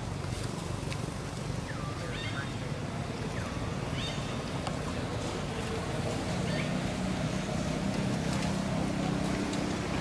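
Outdoor ambience: a steady low rumble that grows a little stronger about halfway through, with several short, high, rising squeaky calls in the first half.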